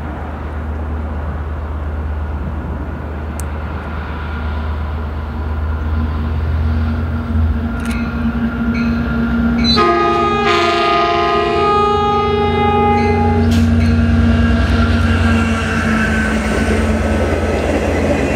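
Metrolink diesel locomotive approaching with a low engine rumble that grows steadily louder, then sounding its multi-note air horn once about halfway through, a chord lasting about two seconds.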